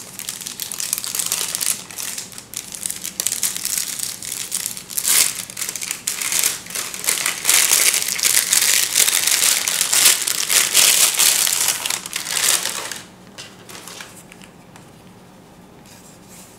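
Thin clear plastic bag crinkling as it is worked off and unwrapped from a camera lens by hand, a dense continuous crackle. It stops about thirteen seconds in, leaving only faint rustles.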